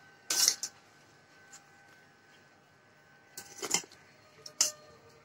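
Three short rustling, clattering handling noises as cut taro stems are shifted about in an aluminium pressure cooker: the loudest about half a second in, two smaller ones near three and a half seconds and near the end.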